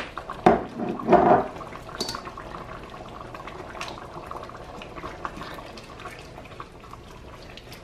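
Pot of wild spinach stew simmering and bubbling while it is stirred with a plastic spoon, with scattered small clicks. A few knocks and louder bursts come in the first second and a half.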